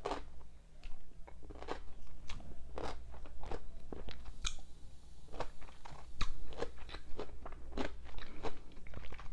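Close-miked chewing of petite sour pickles with whipped cream: crisp, wet crunches, about two a second and unevenly spaced, as the pickle is bitten and chewed.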